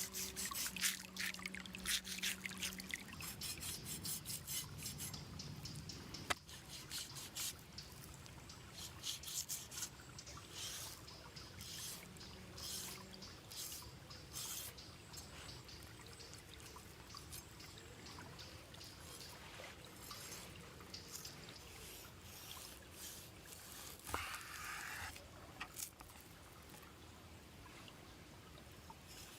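Hands-on cooking preparation: rubbing and scraping sounds with many scattered sharp crackles and clicks, busiest in the first half and again briefly near the end.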